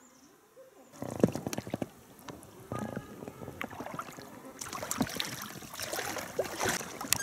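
Water splashing and knocking around a small boat on a river, with irregular sharp splashes and clicks that start abruptly about a second in.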